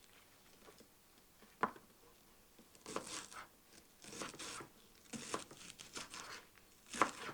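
Knife cutting through fresh scallions on a cutting board: a single knock, then several short crisp, crunchy cuts.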